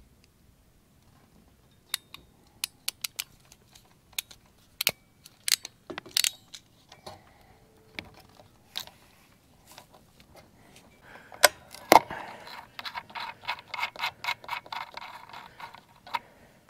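Small hand tools and metal hardware clicking and rattling as a ground wire is fastened to a trailer tail-light bracket. Sharp separate clicks come in the first half, then a quick run of rapid clicking for about five seconds near the end.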